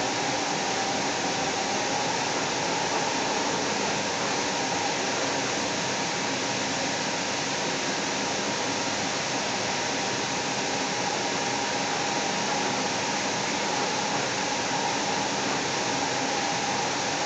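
Interior noise of a Seattle Link light rail car running at speed: a steady hiss and rumble of the train in motion, with faint steady whining tones underneath.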